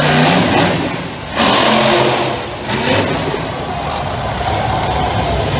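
Monster truck engine revving hard. The throttle is snapped open suddenly about a second and a half in and again near three seconds, falling back briefly between the bursts.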